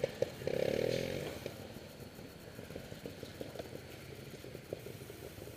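Trials motorcycle engine revved briefly about half a second in, then dropping back to a low, quieter running with scattered small clicks.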